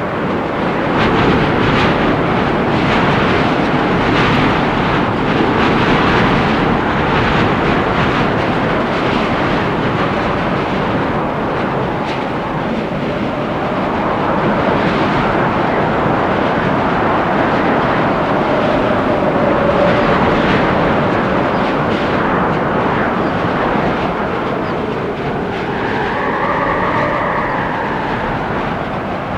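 Storm wind gusting through forest trees: a loud, steady rushing that swells and eases, with a faint whistling tone that rises and falls near the end.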